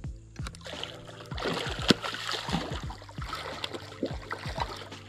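A hooked catfish splashing and thrashing at the water's surface as it is reeled in against the bank, in irregular sloshes with one sharp splash about two seconds in.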